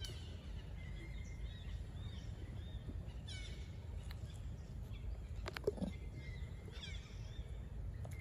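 Outdoor ambience with a steady low rumble and several short, high, falling chirps, either birds or young macaques calling, with a thin high tone held twice. A sharp click about five and a half seconds in, with a lower squeak-like call.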